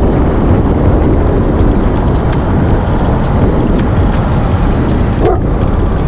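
Steady road and engine rumble inside a moving truck, with one short dog bark about five seconds in.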